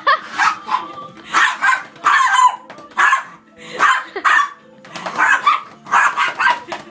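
Small fluffy dogs barking and yapping at each other in quick runs of short barks while they play-fight on a bed.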